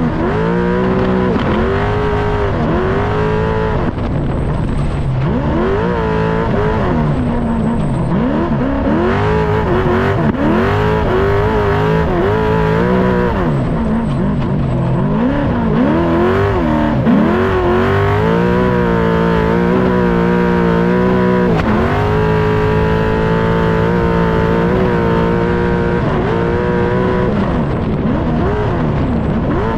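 Off-road race truck's engine running hard at racing speed, its pitch repeatedly climbing and dropping back as it accelerates and shifts gears. Past the middle it holds high revs for several seconds before the rising and falling starts again.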